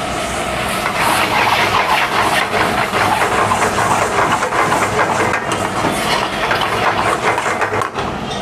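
Steel ladle stirring and scraping grated paneer through thick gravy in a steel kadai, a rapid continuous clatter from about a second in until a short pause near the end, over a steady low kitchen hum.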